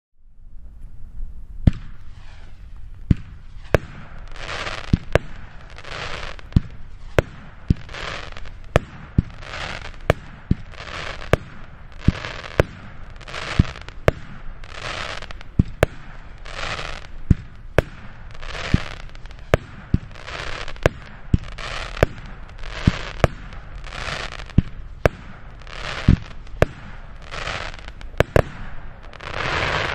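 Noisy Lion 19-shot firework battery (cake) firing shot after shot, about one a second: each sharp thump of a launch or burst is followed by a short hissing rush from the silver whirl tail and the crackling bouquet. Near the end comes a longer, louder hiss.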